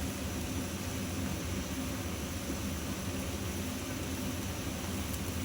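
Steady low hum and hiss of a kitchen stove running while a dish cooks, with no stirring or utensil strikes.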